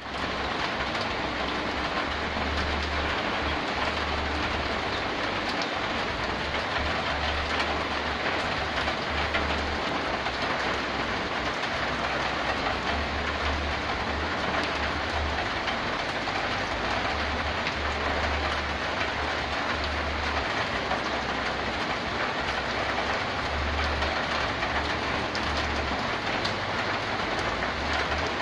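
Rainwater from a gutter falling onto a corrugated zinc roof: a steady, dense patter of drops with sharp clicks, under a low rumble that comes and goes every few seconds.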